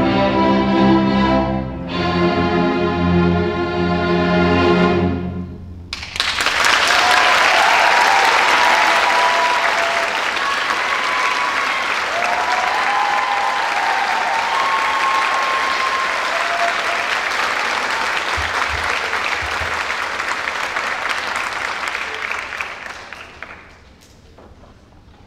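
A symphony orchestra holds its closing chords, changing chord once, and stops about five and a half seconds in. The audience then applauds with a few cheers for about seventeen seconds, and the applause dies away near the end.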